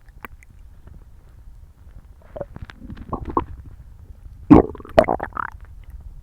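A person's stomach rumbling and gurgling while digesting the first meal in a long while: a run of small gurgles about two and a half seconds in, then two loud rumbling gurgles about four and a half and five seconds in that trail off.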